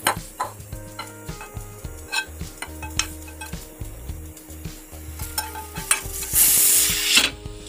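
A spatula scraping and tapping cooked egg bhurji out of a non-stick frying pan onto a plate, in a run of short scrapes and knocks, with one louder, longer scrape about six seconds in.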